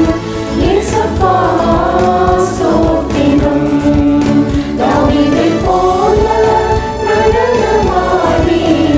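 A mixed choir of men's and women's voices sings a Tamil Christian worship song together over a backing track with a steady drum beat.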